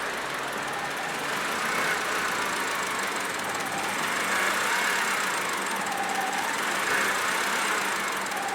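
2010 Honda Civic's engine idling steadily, with a tone that slowly wavers up and down.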